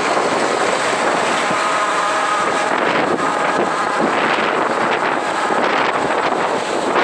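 Wind buffeting the microphone on a moving vehicle, over steady engine and road noise. A faint whine comes and goes in the middle.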